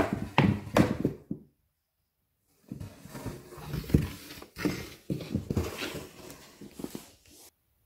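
Cardboard box knocking and scraping on a wooden floor as a cat moves about inside it: a quick run of bumps, a pause of about a second, then more bumps and scrapes that stop shortly before the end.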